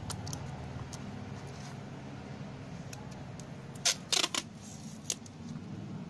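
Sharp clicks and knocks from small plastic parts being handled, with a quick cluster of louder clicks about four seconds in and one more a second later, over a steady low hum.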